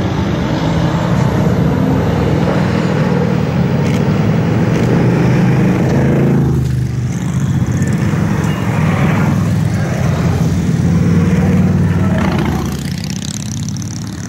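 Several large touring motorcycles running and pulling away one after another, their engines revving in waves as each passes close by.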